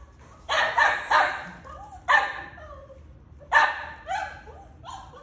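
Small puppy barking: short, sharp barks in three bunches, about seven in all.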